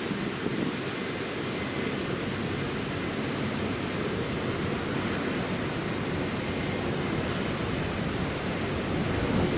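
Jet engines of a Boeing 787-9 airliner on final approach to landing: a steady rushing noise with a faint high whine running through it.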